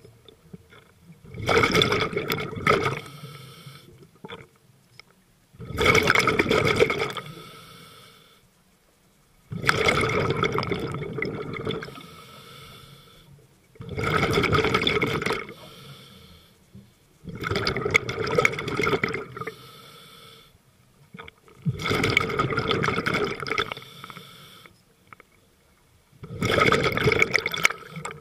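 Scuba diver breathing through a regulator underwater: a loud rush of exhaled bubbles about every four seconds, seven breaths in all, with softer noise between them.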